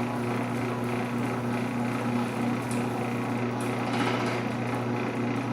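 Genie 1/2 hp garage door opener running a door, its motor giving a steady, loud hum with an even low tone.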